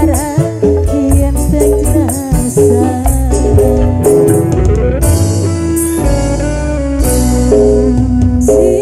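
Loud pantura-style Javanese song playing over a sound system: a melody line moving through held notes over a steady bass and drum beat, with busy percussion on top.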